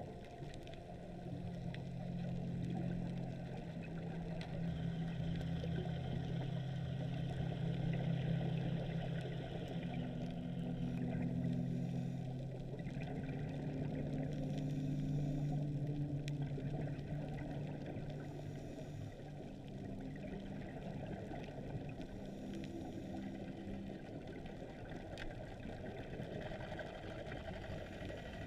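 Boat engine heard underwater as a steady low drone, its pitch shifting a few times.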